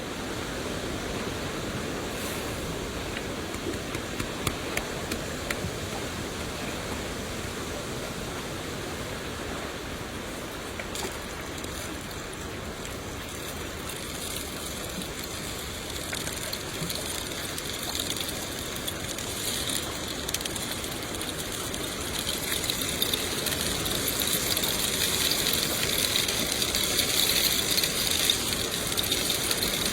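Steady rain falling, an even hiss with fine crackling drop impacts. From about twenty seconds in it grows a little louder, with more crisp splatter in the higher range.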